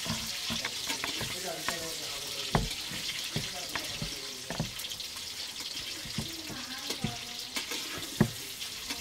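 Boiled eggs sizzling in hot oil in a metal pan, with a spatula clinking and scraping against the pan every second or so as they are stirred.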